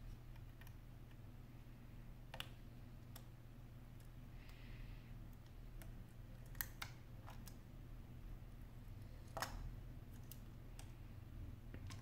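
A handful of small, sharp clicks, spaced irregularly and loudest about nine and a half seconds in, from a small hand tool and parts being handled inside an opened iPhone. They sound over a steady low hum.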